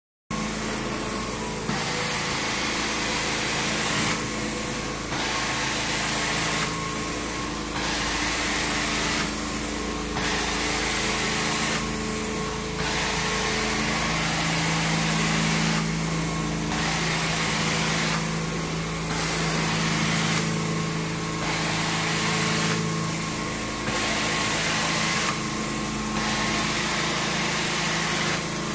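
Carpet extraction cleaner running steadily under its wand, a constant motor hum beneath a suction hiss that swells and drops back about every two seconds as the wand is worked across the carpet in strokes.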